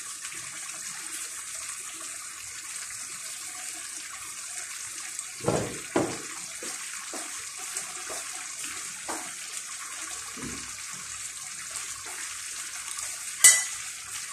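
Potatoes, purple cabbage and chicken simmering in broth in a frying pan, a steady bubbling hiss. A couple of knocks come about five to six seconds in, a few softer taps follow, and a sharp clink, the loudest sound, comes near the end.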